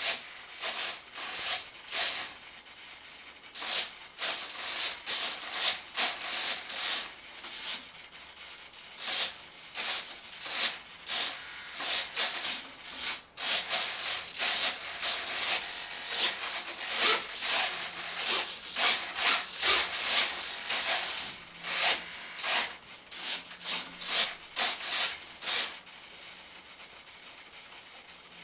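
Servos of an RC model jet's control surfaces whirring in many short bursts, a fraction of a second each, as the tailerons and rudders are driven back and forth; the bursts stop a little before the end.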